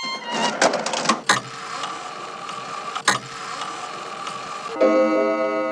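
A few sharp clicks and a rustling hiss, with one more click about three seconds in. Near the end a ringing chord of several tones sets in suddenly and slowly fades.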